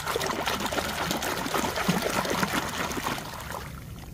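Water pouring and splashing over a toy car being rinsed clean, a steady crackling trickle that tapers off near the end.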